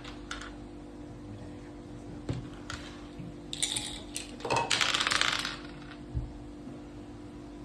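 Mak saka (Thai backgammon) dice and pieces clattering on the board: a few sharp clicks, then two rattles of dice about three and a half and four and a half seconds in, the second lasting about a second.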